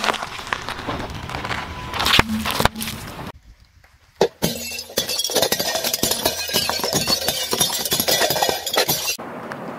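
A car tyre squashing bell peppers, then after a short pause the tyre rolling onto a row of white plates. There is one sharp crack just after 4 s, then a long run of crackling and clinking as the plates shatter, stopping suddenly near the end.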